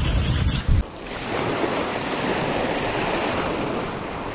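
Sea waves washing and wind buffeting the microphone over open water, a steady rushing hiss. In the first second a deep rumbling noise ends abruptly with a short loud burst.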